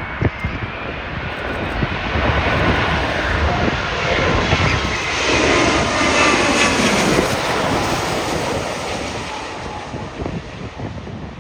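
Jet engines of a Boeing 787 Dreamliner on landing approach, growing louder to a peak about six seconds in with a gliding whine, then fading away, with wind buffeting the microphone.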